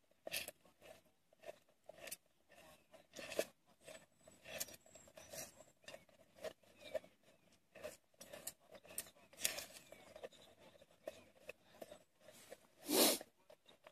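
Plastic spatula stirring and scraping scrambled egg around the inside of a metal billy can on a gas canister stove: light, irregular scrapes and taps, with one louder scrape near the end.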